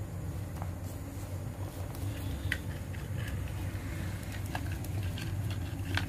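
Plastic toy animals and their clear plastic bag being handled: scattered light clicks and rustles over a steady low hum.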